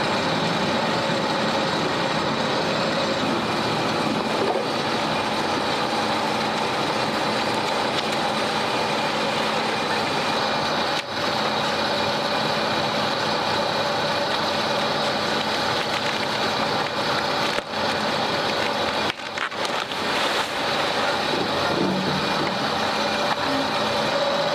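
Heavy diesel construction machinery running steadily at a work site, a dense mechanical din with a constant whine in it, briefly dipping a few times.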